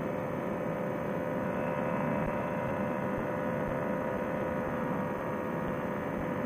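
Paramotor engine and propeller running steadily at cruise power: a constant drone with a steady hum, picked up muffled and thin through the pilot's Bluetooth headset microphone.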